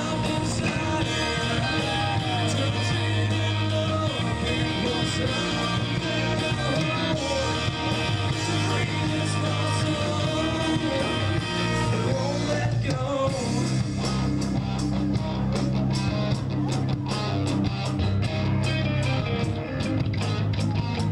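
A live rock band playing: electric guitars, bass and drums. About two-thirds of the way in the band gets fuller and the drumming busier.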